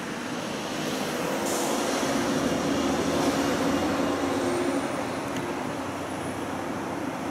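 Street traffic with a heavy vehicle's engine passing close, swelling and then fading. A short hiss comes about a second and a half in.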